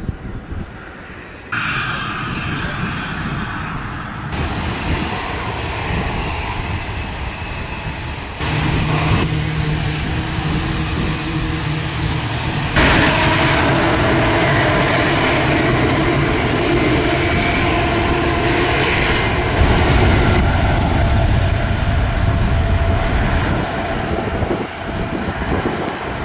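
Boeing 787 Dreamliner's jet engines running loudly, with steady held tones over a wide rush of noise. It changes abruptly several times in level and pitch, as separate recordings are spliced together.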